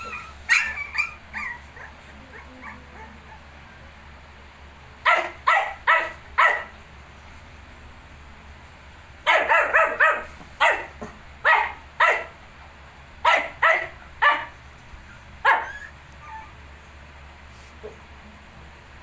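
Small dogs giving short, high yips and barks in quick runs of three to six, with gaps of a few seconds between the runs.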